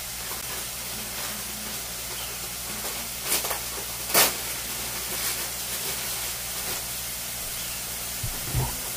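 Mushrooms frying in oil in a stainless steel pan: a steady sizzle with a few sharp pops, the loudest about four seconds in. A low bump near the end.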